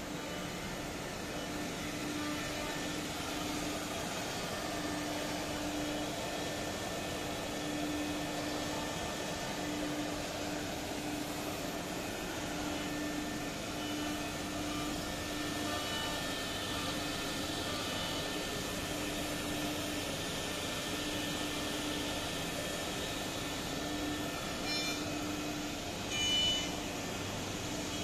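Pro-R4A four-head CNC router running, its spindle at 18,000 rpm giving a steady hum that fades in and out every second or two as the bit routes chair-seat blanks out of a wood sheet. Two brief, sharper sounds near the end.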